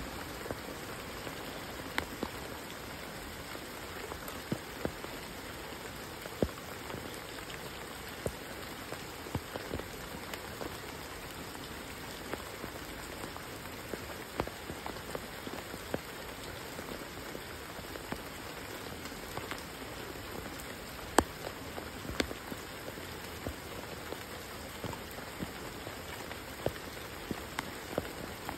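Steady rain: an even hiss, with scattered sharp drops striking close by at irregular moments.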